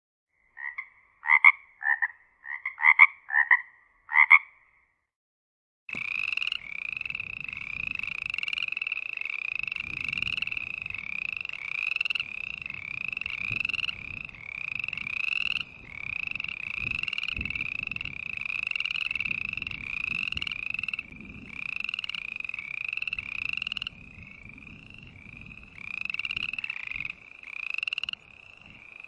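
A single frog croaks about seven short calls in quick groups. After a brief silence, a chorus of many frogs starts up, calling continuously with overlapping, repeated croaks.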